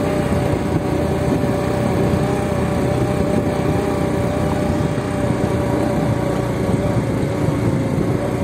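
Motorcycle engine running steadily at an even pitch while riding.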